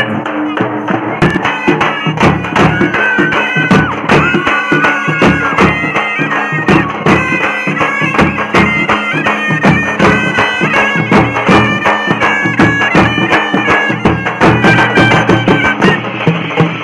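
Festival street band: a loud, reedy wind instrument plays a sustained melody of held, stepping notes over rapid, dense drumming on large stick-beaten drums.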